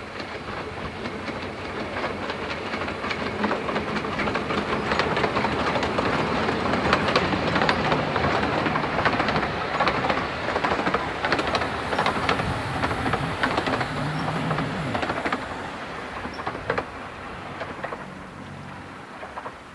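Narrow-gauge steam train passing: the Hunslet 0-4-0T tank engine 'Winifred' works by, then its carriages clatter past with sharp wheel clicks over the rail joints. The sound builds to a peak about halfway through and fades as the train moves away.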